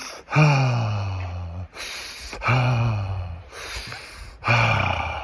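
A man's voiced sighs on the exhale: three in a row, each about a second long and falling slightly in pitch, with a quick audible inhale before each. These are sounded out-breaths of tantric breathwork, the exhale longer than the inhale.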